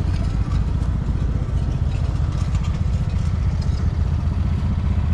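An engine idling steadily, with a fast, even low pulse.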